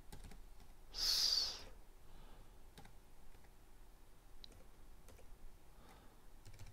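Computer keyboard keys clicking faintly and sparsely as a word is typed, with a short louder hiss about a second in.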